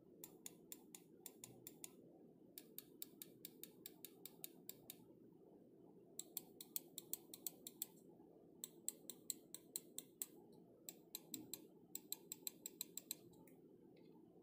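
Attack Shark X3 gaming mouse buttons clicking in six quick runs of sharp, faint clicks, about five a second, with short pauses between the runs.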